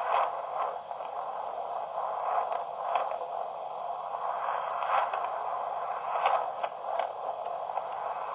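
Narrow, tinny hiss and crackle played back through a microcassette recorder's small speaker, with scattered clicks.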